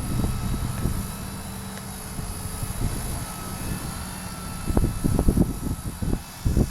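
Strong wind buffeting the microphone in gusts, loudest in a cluster about five seconds in and again near the end. Under it, a faint thin whine from a Blade mCP X micro RC helicopter in flight.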